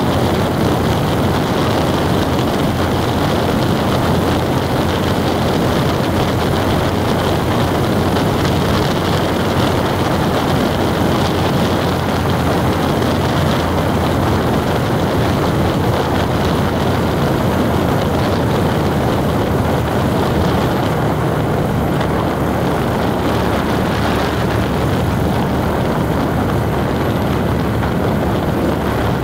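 Vehicle travelling steadily at road speed: an even, unbroken rush of engine and tyre noise with a low hum beneath it.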